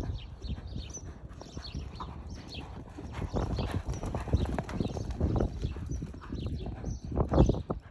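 A horse's hooves thudding on soft arena sand at a lope, louder as it passes close around the middle and loudest near the end. Small birds chirp faintly above the hoofbeats.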